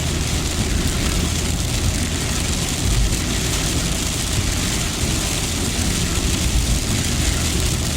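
Car driving on a rain-soaked road: a steady low rumble of engine and tyres under an even hiss of water spray.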